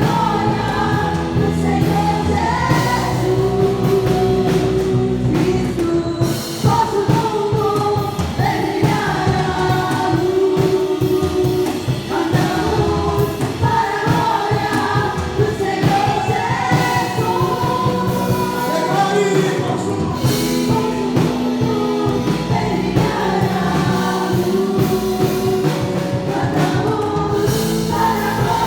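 Live gospel worship music: a group of voices singing a praise song over a full band with a steady drum beat and sustained bass and keyboard notes.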